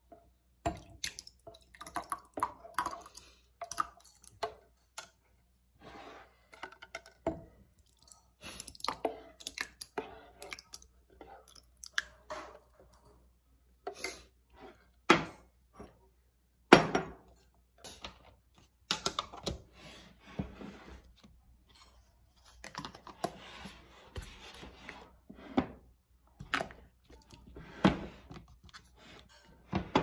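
A metal spoon scooping and scraping thick yogurt out of a metal pan and plopping it into glass jars, with irregular clinks, knocks and scrapes throughout.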